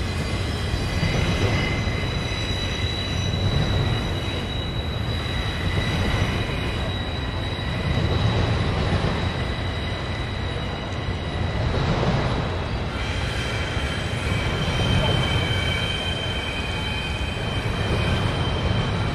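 Double-stack container train rolling over a steel girder bridge: a steady rumble of the cars that swells every couple of seconds, with a high thin wheel squeal over it whose pitch shifts about two-thirds of the way through.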